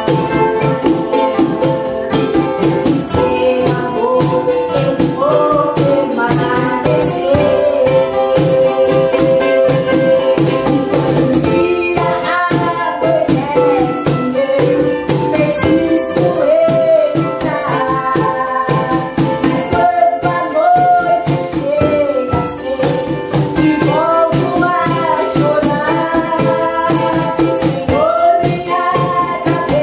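Acoustic guitar, cajón and ukulele playing a hymn together, the cajón slapped in a steady beat under strummed chords, with a woman singing the melody.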